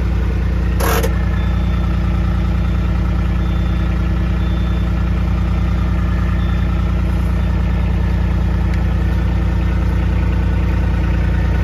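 A vehicle's engine idling steadily close by, with a brief clatter about a second in.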